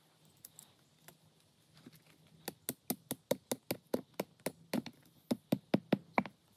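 A hand-held rock hammering a tent stake into the ground: a quick run of about twenty sharp knocks, some five a second, starting about two and a half seconds in.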